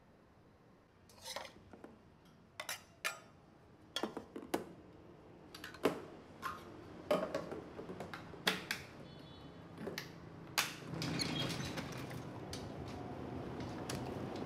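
Kitchen clatter: cooking utensils knocking and clinking against a pan and dishes, in a string of separate knocks, one with a short metallic ring. Near the end a steady noise comes up under them.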